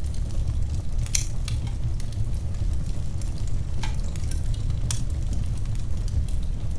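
Fire burning in a fireplace: a steady low rumble with scattered sharp crackles and pops, the clearest about a second in and again around four and five seconds in.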